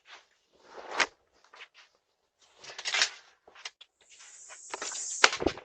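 A few scattered knocks and short rustling bursts, then a steady hiss with sharp clicks for the last second and a half, picked up by a doorbell camera's microphone that drops to silence between sounds.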